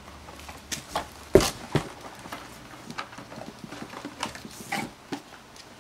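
Scattered clicks, rustles and knocks of packaging being handled and worked open, with one louder knock about a second and a half in.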